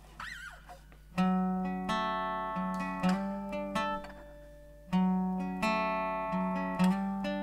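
Acoustic guitar playing the instrumental intro to a song: picked chords ringing out, starting about a second in, with the same phrase coming round about every four seconds.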